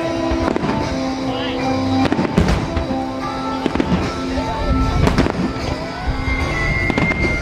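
Fireworks going off in a rapid, irregular series of bangs and booms, with music playing underneath.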